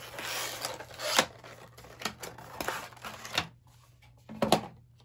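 Packaging of a makeup brush set being handled and opened: a rustle, then half a dozen sharp clicks and snaps.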